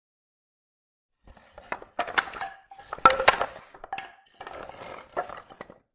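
Pieces of wood being moved and shifted, knocking and scraping against one another with a few short creaks. It comes in uneven clusters starting about a second in and stops just before the end.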